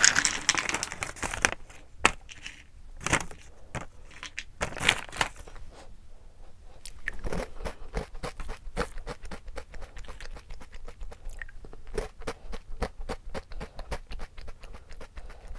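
A foil snack bag rustles and pink strawberry puffed snacks spill into a wooden bowl in the first second or so. Then comes close-miked crunchy chewing of the puffs, with rapid crisp crunches through the second half.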